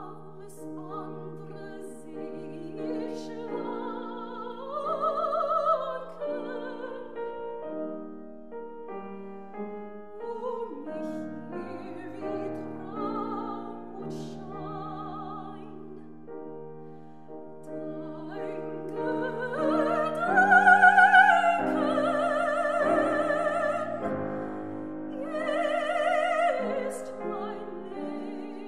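Female classical singer singing a German art song with wide vibrato, accompanied by a grand piano. The voice swells to its loudest, highest phrases about two-thirds of the way through.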